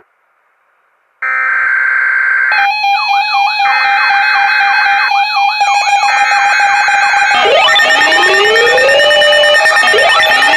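Layered electronic emergency alert tones and sirens. After about a second of silence a loud steady high tone starts, several wavering warble tones join it a little later, and from about seven seconds in, siren sweeps rise in pitch, level off and repeat every couple of seconds.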